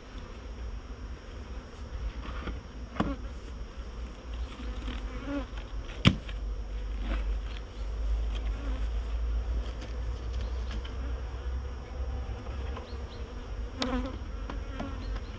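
Honeybees buzzing around a hive, with individual bees passing close in brief hums that swell and fade. A single sharp click about six seconds in is the loudest sound.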